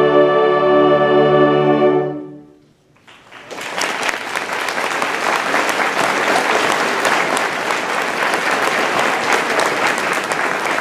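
Concert band of woodwinds and brass holding its final chord, which is cut off about two seconds in. After a moment of silence the audience breaks into steady applause.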